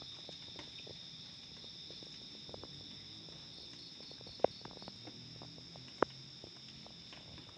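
Crickets chirping in a steady, continuous high chorus, with scattered small clicks and two sharper clicks about a second and a half apart near the middle.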